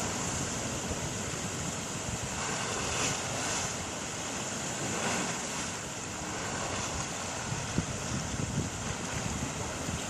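Ocean surf breaking and washing ashore in a steady hiss that swells a couple of times, with wind rumbling on the microphone.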